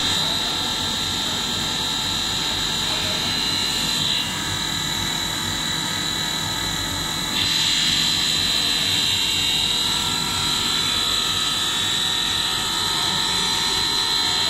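Cereal-ring snack extrusion line running: a steady machine hum and drone with a high whine over it. The whine weakens about four seconds in and comes back louder about seven seconds in.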